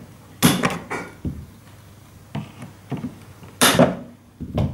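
Hard plastic drill carry case being handled and worked open: a series of separate knocks and clicks, the loudest a cluster near the end.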